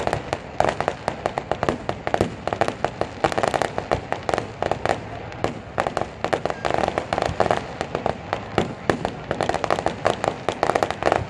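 Aerial fireworks display: a dense, unbroken string of sharp bangs and crackles, several reports a second.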